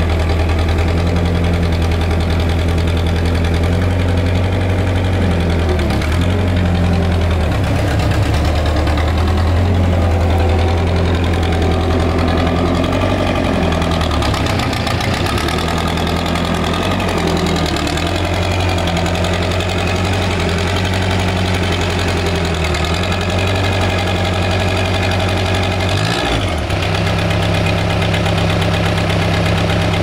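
Thomas skid steer's engine running steadily, its pitch dipping briefly a few times as the machine is worked and driven.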